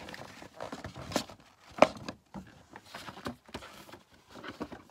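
A folded cardboard game playmat being handled and moved about: light rustling and scattered knocks, with one sharp knock just under two seconds in.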